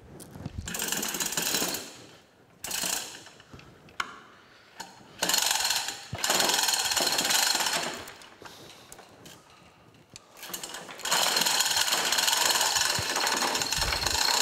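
Rapid metallic ratcheting clatter in several bursts of a second or so, then a longer run of about three seconds near the end.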